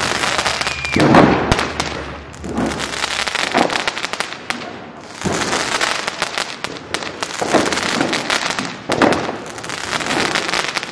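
Firecrackers going off repeatedly: a sharp bang every second or two, with crackling in between.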